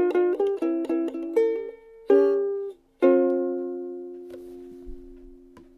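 Martin soprano ukulele played fingerstyle: a run of quick plucked notes, then a strummed chord about two seconds in. A last chord about three seconds in rings out and slowly fades.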